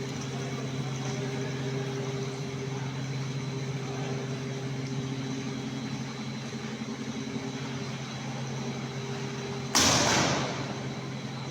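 Mini rice milling machinery running with a steady motor hum. About ten seconds in there is one sudden loud noisy burst that dies away within about half a second.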